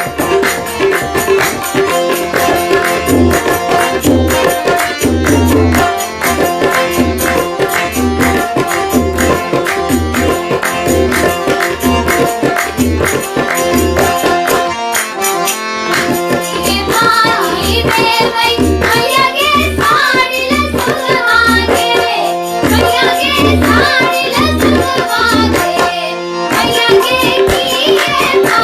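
Music of the Maithili folk song jhijhiya: tabla keeps a steady rhythm with other instruments, and a singing voice comes in about halfway through.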